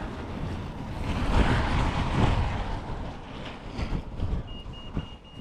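Wind buffeting the microphone over the rushing noise of a car passing on a village road, swelling about a second and a half in and then fading. A thin high tone sets in near the end.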